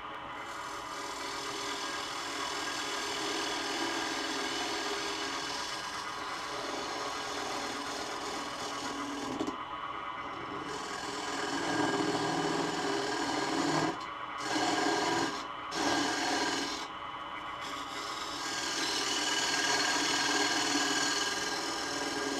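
Laguna Revo 12/16 wood lathe spinning a wooden disc while a carbide turning tool scrapes out its centre hole: a steady rasping cut over the lathe's steady hum. The cut breaks off briefly a few times around the middle as the tool is lifted and put back.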